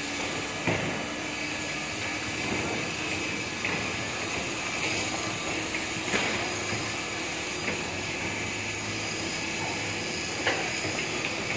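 Diesel construction machinery (an excavator and a truck crane) running steadily, with three sharp knocks: about a second in, about six seconds in and near the end.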